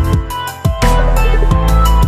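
Electronic background music with a heavy bass and a steady drum beat; the bass drops out briefly about half a second in before the full beat returns.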